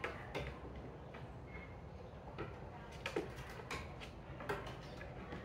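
Irregular light taps and knocks of kittens' paws and claws on wooden floorboards and a wooden bench as they play, scattered ticks coming every half second to a second.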